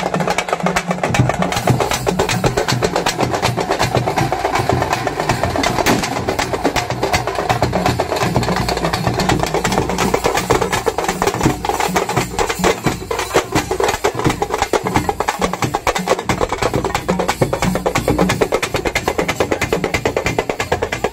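Street procession drum band: parai frame drums beaten with sticks together with a rope-laced barrel drum, playing a fast, dense, steady rhythm.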